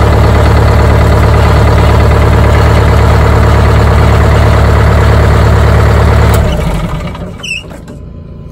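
Detroit Diesel two-stroke bus engine idling steadily and evenly, then shut off about six and a half seconds in and running down to a stop. A brief high chirp comes during the run-down.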